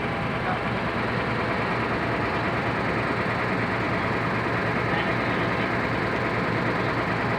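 A heavy engine idling steadily, a constant mechanical drone with no change in speed.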